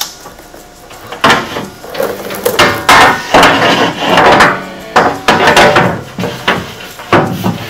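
Aluminum belly skid plate knocking and clattering against a UTV's frame as it is pushed up and fitted into place by hand, a string of irregular loud knocks, some with a brief metallic ring.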